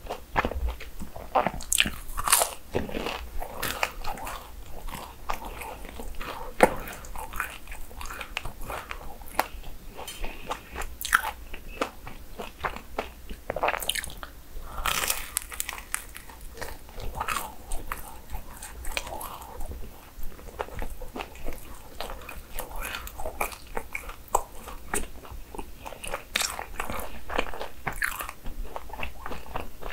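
Close-miked biting and chewing of churros, the crisp fried crust crunching in many small irregular snaps.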